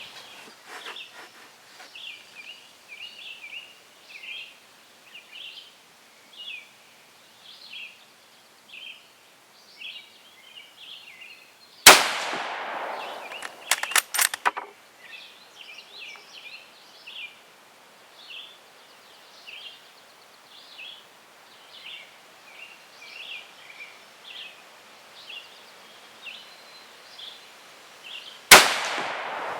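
Two rifle shots from an Israeli 7.62x51mm NATO Kar98k Mauser, about sixteen seconds apart, each followed by a short echo; a few sharp metallic clicks follow the first shot as the bolt is worked. Birds chirp throughout.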